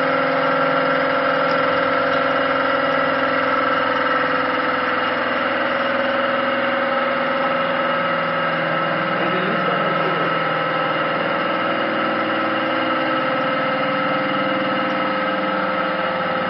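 Hydraulic power unit of a HYDRO-TEC HP 1000 concrete splitting system running steadily under load, its high-pressure pump (up to 2000 bar) driving splitting cylinders that crack a concrete floor slab. A constant machine hum, its lower notes shifting slightly about halfway through.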